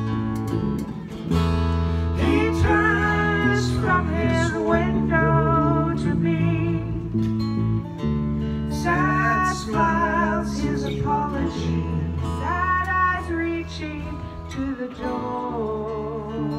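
Live band playing a song: an electric bass guitar and a strummed acoustic guitar under a woman's singing, which comes in phrases of a few seconds with short gaps between.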